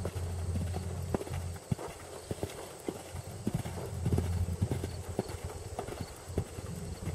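Hoofbeats of a ridden Irish Sport Horse mare cantering on the sand footing of an arena: a run of uneven, muffled thuds.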